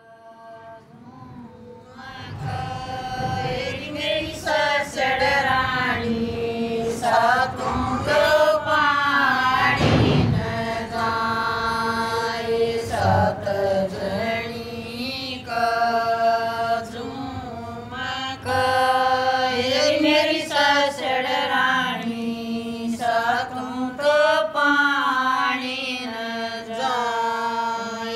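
Haryanvi village women singing a Sawan rain-season folk song unaccompanied, with long held notes. The singing fades in over the first couple of seconds.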